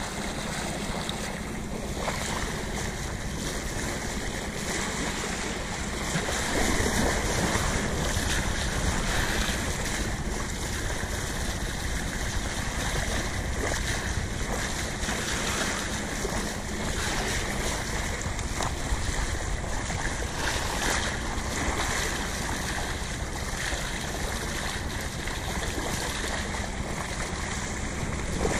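Bow wave rushing and splashing along a sailboat's hull as it moves through the sea, with wind buffeting the microphone.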